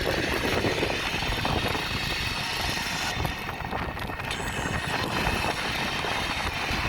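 Wind rushing over the microphone of a camera mounted on a moving bicycle, a steady, gusty rumble with road noise underneath.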